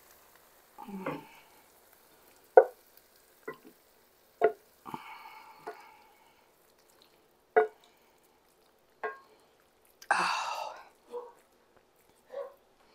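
A wooden spoon scraping cooked rice out of a skillet into a ceramic bowl: short scrapes and shuffles of food sliding out, with about five sharp knocks as the spoon and pan hit the bowl.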